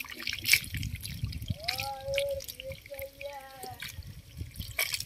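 Many small fish flapping and splashing in shallow running water, an irregular patter of wet slaps and drips over a low rushing sound.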